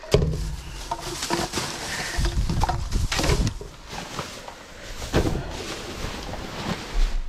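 Rubbish being rummaged through by hand in a dumpster: rustling and scraping with irregular knocks and clatters of items being moved, the strongest about a second in, around three seconds in and about five seconds in.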